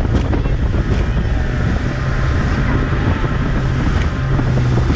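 Tohatsu 30 hp outboard driving an Addictor 190 mini-boat at speed, running steadily, with wind buffeting the microphone and water rushing past the hull.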